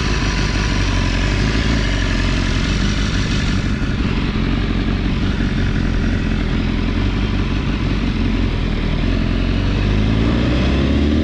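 BMW S1000RR's inline-four engine running at low revs as the bike rolls slowly. Near the end the pitch rises as the bike accelerates.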